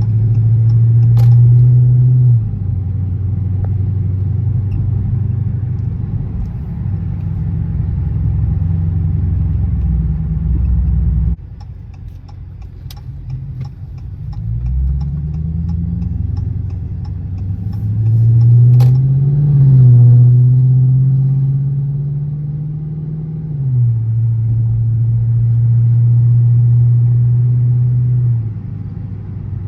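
Car engine and road noise heard inside the cabin while driving. The low drone drops off abruptly about eleven seconds in, then rises in pitch as the car accelerates, holds steady, and falls away near the end.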